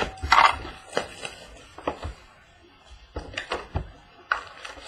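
Hands handling and opening a cardboard box of trading cards on a wooden tabletop: a short scraping burst near the start, then scattered taps and knocks.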